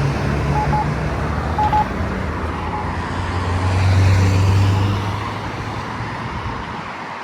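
Road traffic running through the intersection, with one vehicle's engine hum swelling about halfway through and then fading. Under it, the Campbell accessible pedestrian push button gives a short beep about once a second during the first few seconds.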